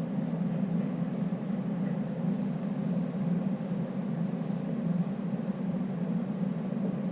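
Enclosure heater running, a steady low hum that does not change.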